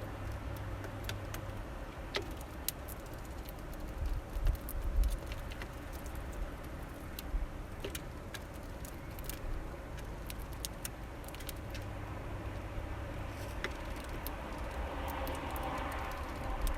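Small finches feeding at a bird feeder: scattered sharp taps and clicks of beaks on seed and feet on the feeder, with a louder cluster of knocks about four seconds in, over a steady low rumble.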